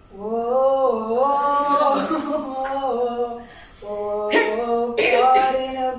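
A woman singing unaccompanied into a handheld microphone, holding long, steady notes. There is a short break about three and a half seconds in before the next phrase.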